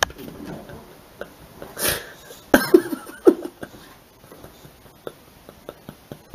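A dog lying on its back, making a breathy burst about two seconds in, then a quick run of short grunting sounds that come across as laughing.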